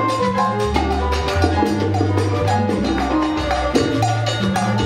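Background music with a moving bass line, melody notes and quick, busy percussion.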